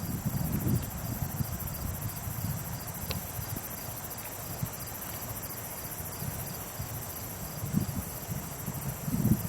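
Crickets chirping in a steady, fast-pulsing chorus, with an irregular low rumble underneath.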